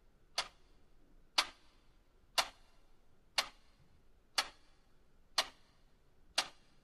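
Clock ticking: seven sharp ticks, one a second, used as a time-passing sound effect in the story.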